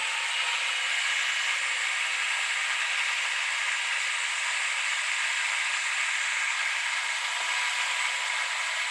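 Food processor running steadily while pureeing a batch of hummus: an even whirring hiss with a faint steady whine.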